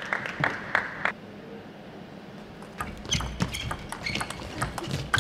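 Table tennis ball clicking on the table a few times near the start. After a quiet stretch of about two seconds a rally begins: quick ball hits on paddles and table mixed with the squeak of players' shoes on the court floor.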